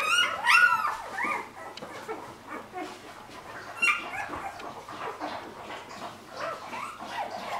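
A litter of newborn puppies squealing and whimpering from hunger. Loud rising-and-falling cries come in the first second or so, then fainter overlapping whimpers, with another sharp cry about four seconds in.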